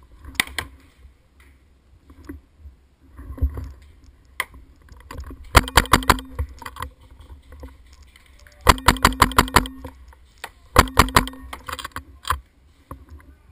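Paintball marker firing three rapid strings of shots, about ten pops a second, midway, at about nine seconds and at about eleven seconds, with a few single pops earlier.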